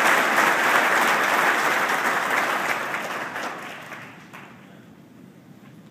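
Large audience applauding, the clapping dying away about four seconds in.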